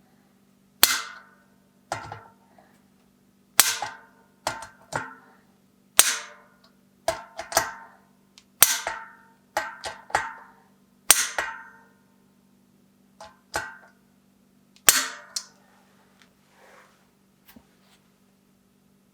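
Sharp metallic clinks and knocks of workshop tools and bicycle parts being handled, many strikes at irregular intervals, each ringing briefly, over a steady low hum.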